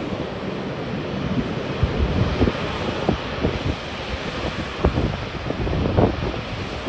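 Wind buffeting the microphone in irregular gusts, with short low thumps over a steady rushing noise.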